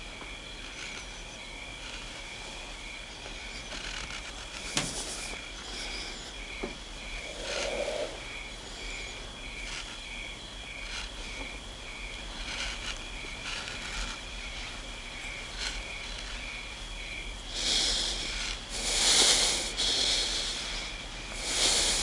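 Crickets chirping steadily in a night-time ambience, a high pulsing trill over a thin steady tone. A few louder rustling, hissing bursts come near the end.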